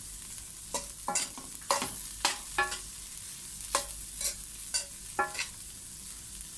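A spatula is stirring fried rice in a stainless steel pan, scraping and knocking against the pan in irregular strokes about two a second, some of them ringing. Underneath is a steady sizzle of frying.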